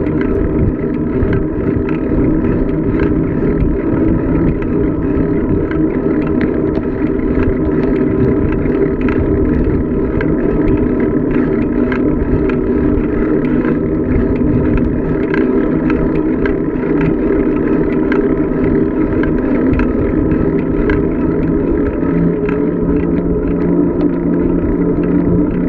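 Bicycle coasting fast downhill on a paved road: a steady hum from the tyres over a continuous rumble of wind on the microphone.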